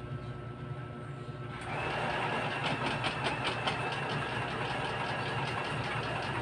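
A small electric motor in a household appliance runs steadily with a regular clatter for about five seconds, starting about one and a half seconds in, then is switched off with a click at the end.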